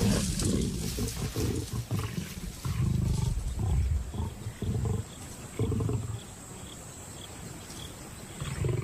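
Lions snarling and growling in a run of harsh, deep bursts, then a quieter stretch and one more growl near the end. This is a male lion pulling rank at a carcass and driving the lionesses off the kill.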